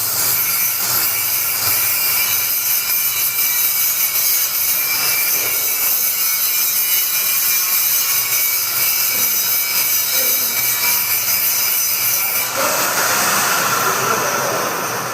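Heavy-duty blender running steadily, a loud whirring motor noise with a high whine. About twelve seconds in its sound changes, turning duller and lower.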